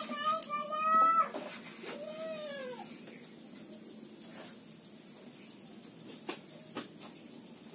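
A cat meowing: a long, level meow that breaks off about a second in, then a shorter meow that rises and falls in pitch about two seconds in. After that only a few faint clicks.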